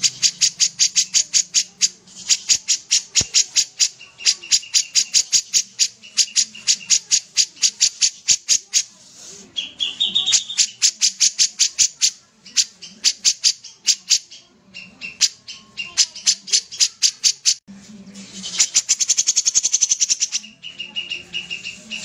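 A caged kapas tembak bulbul singing vigorously: long runs of rapid, sharp, evenly repeated notes at about eight a second, broken by short pauses, at times over a thinner held whistle. A denser, faster trill comes near the end.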